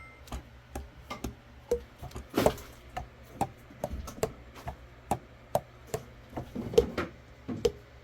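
Saxophone keys being worked by hand: an irregular run of clicks and clacks, two or three a second, as the pads slap shut on the tone holes, some giving a short hollow pop.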